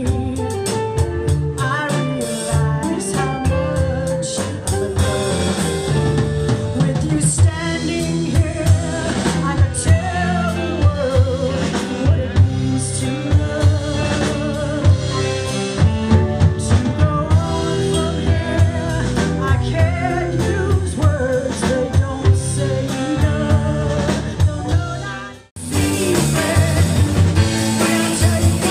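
Live rock band playing, with a woman singing lead over drum kit and electric guitar. About 25 seconds in, the sound cuts out for a moment at an edit and the band comes back in mid-song.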